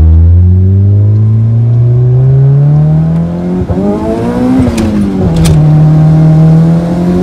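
Turbocharged Honda D16 SOHC four-cylinder of a Civic ESi, heard from inside the cabin, revving up steadily under hard acceleration. About three and a half seconds in the revs break and drop sharply as at a gear change, with two short sharp sounds just after, and then the engine pulls and climbs again.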